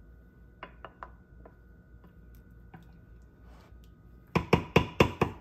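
Metal spoon working a thick casserole mixture in a ceramic baking dish: a few faint clicks as it scrapes the dish, then about six sharp, loud clacks in quick succession near the end as the spoon knocks against the dish.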